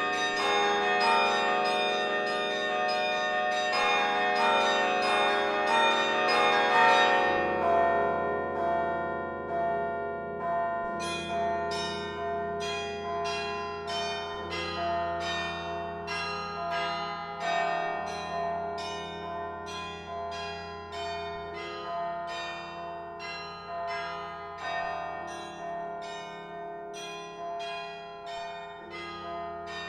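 The Laura Spelman Rockefeller Memorial Carillon's bells played from the baton keyboard. For the first seven seconds or so there is a dense rush of fast strikes, then separate notes about two a second, each ringing on over lower sustained bells.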